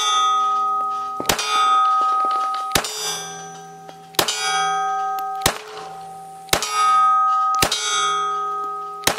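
A .380 ACP Ruger LCP Max pistol fires seven shots at an uneven pace, about one every second to second and a half. Each shot is followed by a steel plate target ringing and slowly fading, the pitch changing with the plate that is hit. The 10-round magazine feeds through without a jam.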